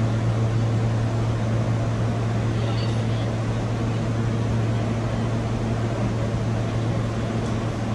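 Steady low hum over a noisy rumble: the ambient drone of an underground subway station platform with no train pulling in. It cuts off abruptly at the very end.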